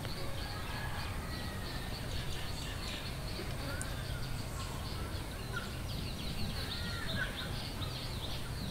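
Outdoor ambience: birds chirping and twittering in short, scattered calls over a low steady background rumble.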